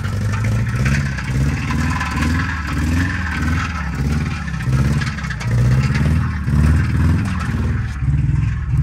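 Subaru Legacy boxer engine running at full throttle on thick water instead of oil, its note swelling and dipping over and over. The engine is knocking from lack of lubrication, on its way to seizing.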